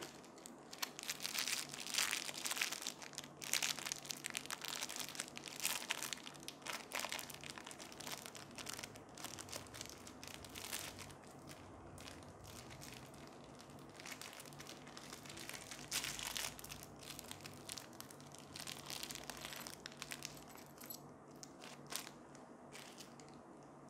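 A small clear plastic bag crinkling and crackling as fingers handle and open it, in irregular bursts that are densest over the first several seconds and come in sparser clusters after.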